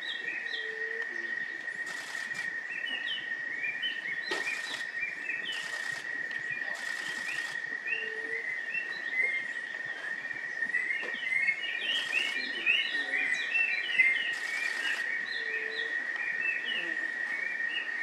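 Many small birds chirping in short, high notes, busiest just past the middle, over a steady high-pitched whine. A soft low note sounds three times, and brief hissing swells come and go.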